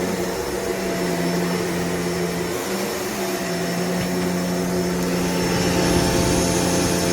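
Shark upright vacuum cleaner running steadily: a motor hum over the rush of air.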